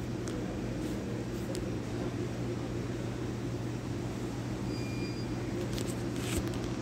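Shopping cart being pushed along a supermarket aisle: a steady low rumble with a few light rattles and clicks, over a constant store hum. A faint short beep sounds about five seconds in, and a brief cluster of rattles comes near the end.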